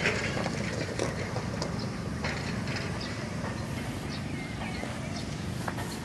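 Footsteps crunching over gravel and dirt, with scattered light clicks and knocks over a low steady rumble of outdoor background noise.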